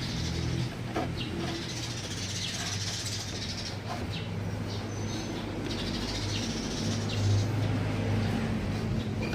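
Steady low bass notes from the finished bandpass subwoofer box during a sound test, shifting about a second in and again near seven seconds, with birds chirping over them.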